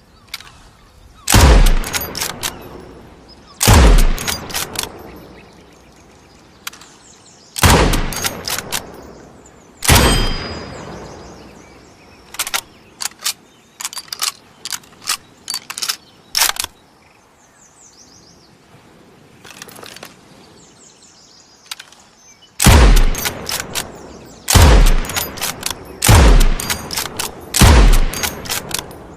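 Lee-Metford bolt-action rifle in .303 British firing single shots, eight in all: four spaced a few seconds apart, then after a pause four more in quicker succession near the end, each shot trailing off in an echoing tail. Shorter, quieter clicks and knocks come between the shots, most in the middle stretch.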